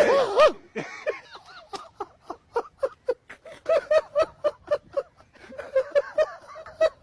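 Laughter: a loud burst at the start, then a long rhythmic run of short "ha" syllables, about three to four a second.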